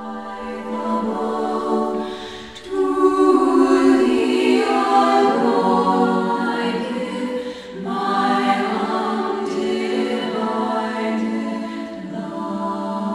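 Choir of Benedictine nuns singing a slow sacred hymn in long held notes.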